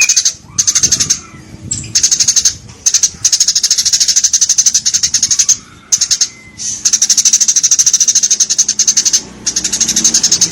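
Eurasian tree sparrow calling in fast, rapid-fire runs of high chirps. Each run lasts a few seconds and breaks off in a short pause before the next begins.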